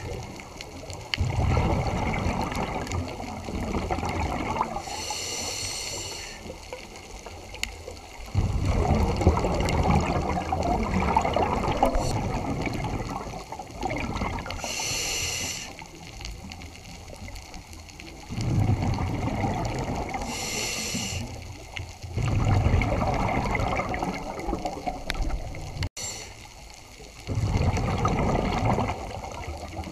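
Scuba diver breathing through a regulator, recorded underwater: a short hiss of inhaling, then a longer rush of exhaled bubbles, repeating every five or six seconds.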